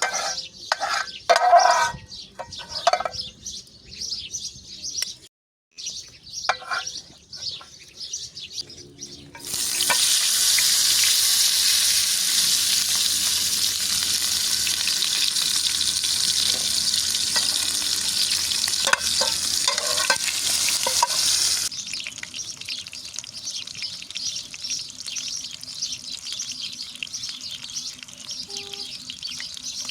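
Birds chirping, then about a third of the way in food starts sizzling loudly as it fries, a steady high hiss. Near the two-thirds mark the sizzle cuts to a quieter, softer hiss.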